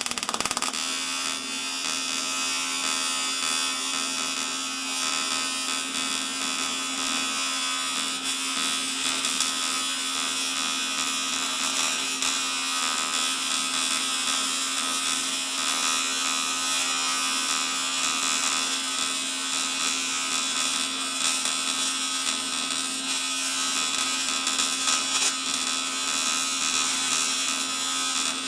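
AC TIG welding arc buzzing steadily while welding a crack in an aluminium motorcycle crankcase.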